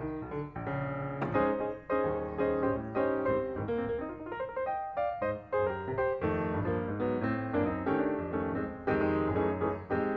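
Background piano music, a run of quick notes.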